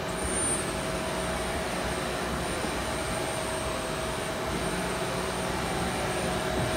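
Steady whir of powered-up shop machinery, a constant drone with a thin, even whine on top and no change in speed.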